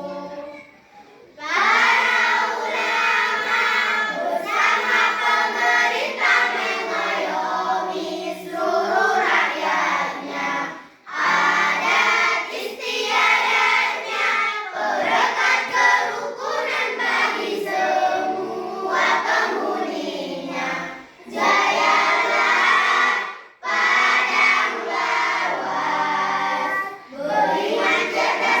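Choir of young voices singing together in sustained phrases, with short breath pauses between them.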